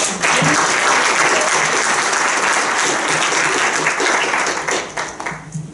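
Audience applauding: dense clapping that thins to a few scattered claps near the end.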